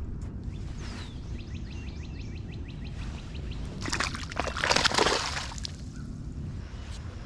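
Lake water sloshing and splashing, swelling up for about a second and a half some four seconds in, over a steady low rumble of wind on the microphone.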